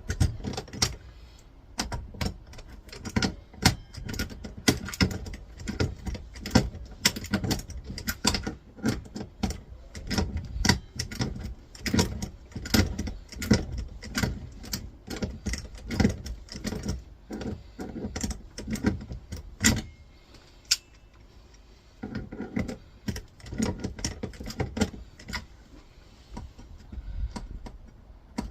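Pliers gripping and turning a small nut on a monitor stand's metal mechanism, with irregular metallic clicks, clinks and rattles of tool on metal as the nut is worked loose, and a short lull about two-thirds of the way through.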